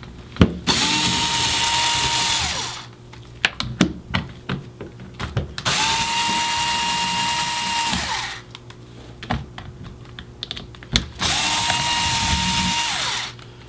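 Cordless Ryobi screwdriver run three times for about two seconds each, backing screws out of a Tippmann TiPX paintball pistol's shell. Each run has a whine that rises as the motor spins up and falls as it stops. Between the runs come light clicks and knocks of the pistol being handled and screws being set down.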